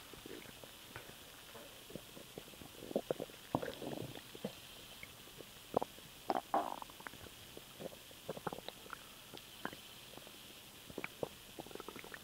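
A person's stomach gurgling from swallowed air: irregular pops and bubbling gurgles, busiest about three to four seconds in and again about six to seven seconds in.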